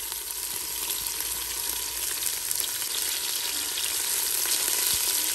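Sliced onions frying in hot oil with a steady sizzle, stirred with a wooden spatula.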